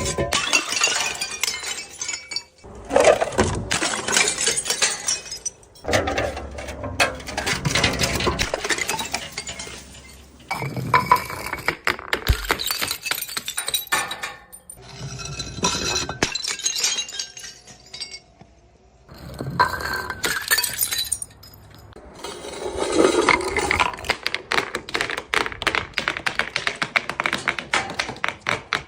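Glass bottles smashing and shattering again and again, with clinking shards and crackling crunches. A short quieter gap comes about two-thirds of the way through.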